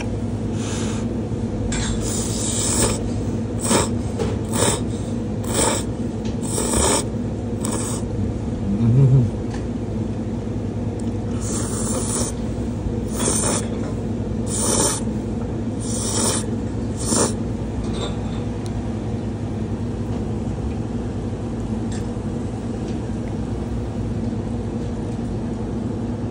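Thin ramen noodles being slurped in about a dozen short bursts, in two runs, over a steady low machine hum. A brief low-pitched sound, the loudest moment, comes about a third of the way in.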